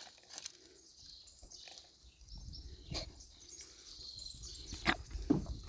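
Goats moving about close by: scattered knocks and scuffling, the sharpest two near the end, over a low rumble.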